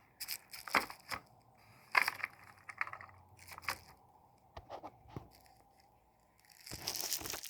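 Handling noises from a plastic OO gauge model locomotive being turned over in the hands: scattered light clicks and brief rustles, with a longer rustling scrape near the end.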